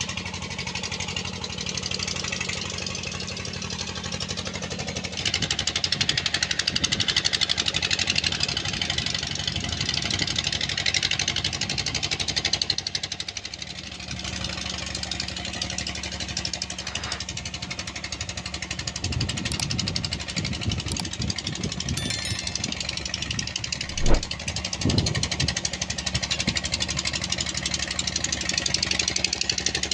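A motor running steadily with a low hum, under a constant hiss. There is one sharp knock about two-thirds of the way through.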